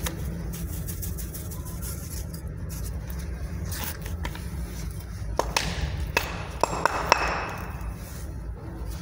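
A handful of sharp metallic clinks and taps from masonry hand tools being handled, in quick succession about five to seven seconds in, over a steady low hum.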